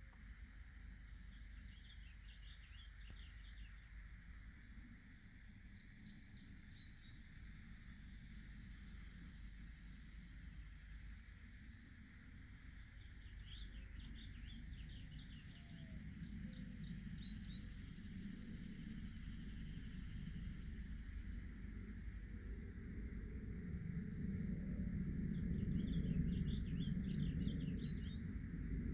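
Outdoor insect chorus: a steady high trill, with a louder high buzz lasting about two seconds that comes back roughly every ten seconds. Short bursts of rapid high chirps fall between the buzzes, over a low rumble that grows louder in the second half.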